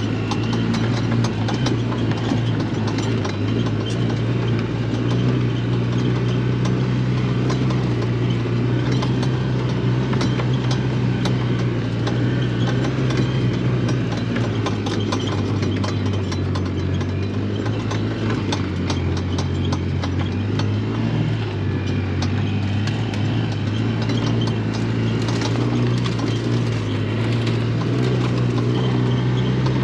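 A vehicle engine running steadily, its pitch dipping for a few seconds about eighteen seconds in.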